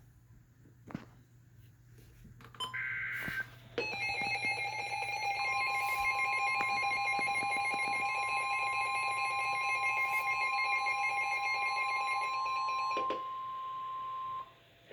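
Emergency Alert System attention signal: about three seconds in a short burst of data-header tones, then from about four seconds in a loud, steady, piercing dual-tone alarm, joined moments later by a second steady tone that carries on for about a second after the first stops near the end.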